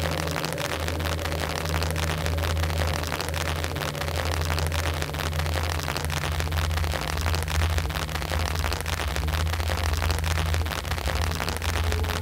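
Steady rain pattering and dripping, a dense crackle of many small drops, over a low droning hum that swells and fades every second or so.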